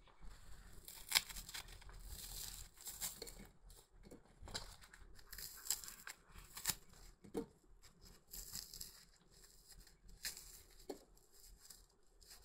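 Fingers pulling cooked chicken apart into shreds over a plate: a faint run of irregular tearing and rustling sounds with small sharp clicks.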